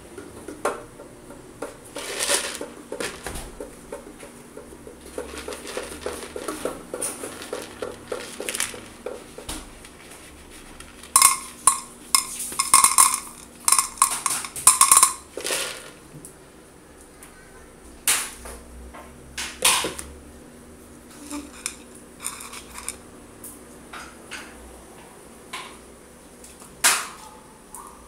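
Spoon and dish clinking and scraping as a dog's meal is prepared in its bowl, with scattered clinks and a quick, louder run of them about halfway through.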